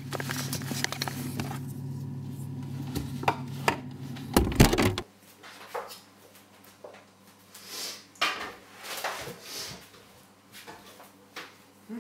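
Kitchen handling sounds: a steady low hum while the fridge stands open, a heavy thump about four and a half seconds in, then scattered clicks and clatter of crockery and a plastic milk bottle being handled at the counter.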